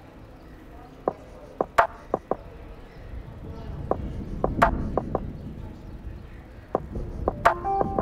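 Handling noise on a hand-held camera being swung around: about a dozen irregular sharp clicks and knocks over a low wind rumble on the microphone. Music with plucked guitar begins near the end.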